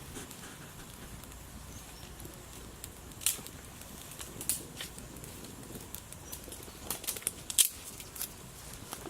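Outdoor cooking fire with a pan of frying masala: scattered sharp crackles and pops, a few seconds apart, over a low steady background noise. The loudest pop comes near the end.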